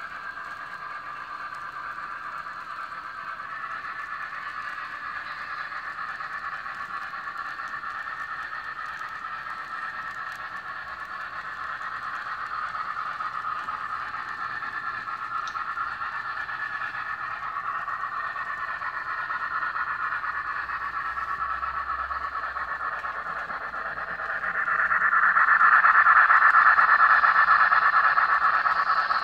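N scale model passenger train running on the layout track: a steady running noise from the wheels and motor. It grows much louder about 25 s in as the train comes close, then eases a little.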